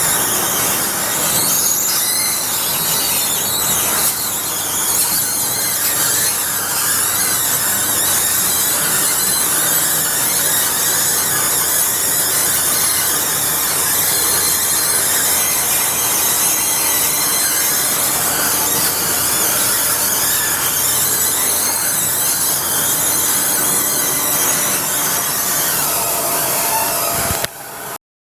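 Rigert stair lift on a very steep track squealing and squeaking continuously as it travels, over its running noise. The sound cuts off abruptly near the end.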